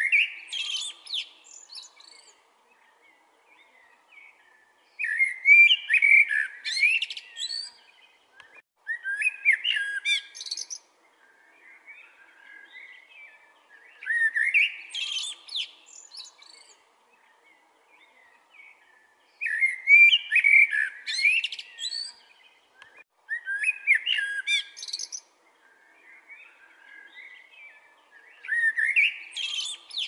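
Male common blackbird singing: seven warbled phrases about four to five seconds apart, each with gliding notes and a higher twitter, with softer notes in the pauses between.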